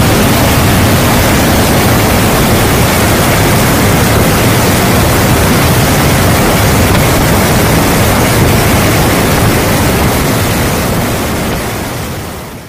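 Loud, steady rushing noise of a C-17 Globemaster III in flight, heard from inside the cargo hold: engine and airflow noise with a low drone underneath. It fades out over the last two seconds.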